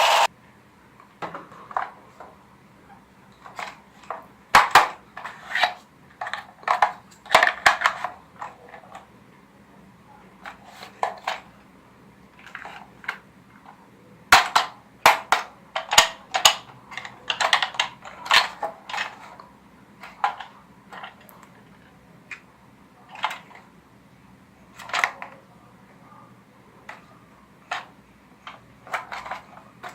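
Irregular sharp plastic clicks and clacks of toy guns, some single and some in quick runs of several, each with a brief hollow ring.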